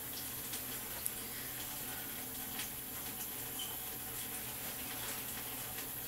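Steady background hiss, with a few faint rustles and small taps as a head scarf is wrapped over twisted hair and tied at the back.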